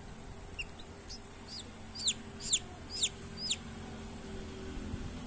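A hatching Rhode Island Red chick peeping from inside its partly opened shell: a string of short, high peeps that fall sharply in pitch, loudest in the middle, about two a second.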